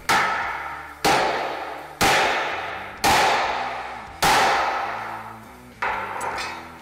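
Baby sledgehammer striking the steel punch of a homemade dimple die, driving a dimple into 16-gauge sheet metal: five hard metallic blows about a second apart, each ringing out, then a lighter sixth blow near the end.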